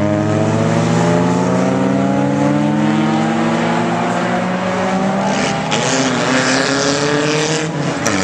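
Engines of several ChumpCar race cars, cheap production cars, accelerating through the chicane as they pass one after another. Their note climbs steadily in pitch, drops about two-thirds of the way through, then climbs again.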